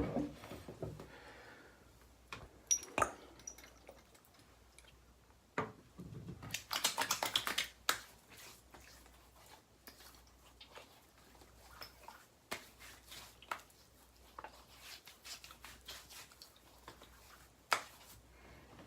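Scattered clicks, taps and light rustles of shaving gear being handled and set down, with a denser run of quick taps about six to eight seconds in.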